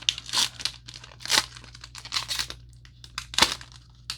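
A foil Pokémon booster pack wrapper being torn open and crinkled: a series of short, irregular ripping and crackling bursts, the loudest a little before the end.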